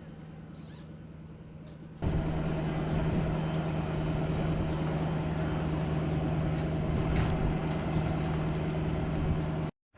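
An engine running steadily at a constant pitch. About two seconds in, the sound jumps abruptly to a much louder, closer engine, which cuts off suddenly near the end.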